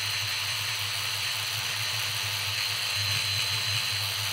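Sonic Scrubber electric scrubbing brush running with its bristles pressed on a circuit board, scrubbing off baked-on flux and grime. It makes a steady motor whine with a high tone and a fluttering low hum under the hiss of the bristles.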